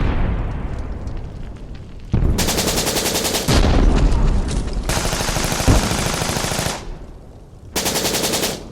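Battle sound effect of automatic gunfire. A single echoing report opens it, followed by long rapid bursts of machine-gun fire with a heavy thump in the middle and a shorter burst near the end.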